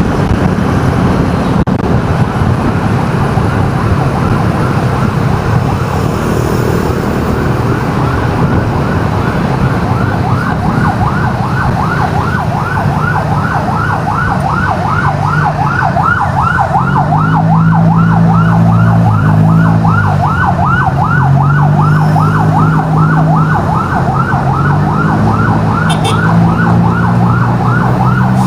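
Emergency vehicle siren yelping in quick rising sweeps, about three a second, that grow clearer partway through, over steady road traffic noise. A heavy vehicle's low engine hum swells and fades several times in the second half.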